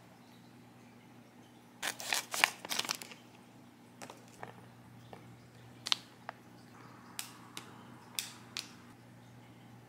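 Plastic snack pouch crinkling as it is handled, in a dense burst about two seconds in, followed by a series of light clicks and crinkles.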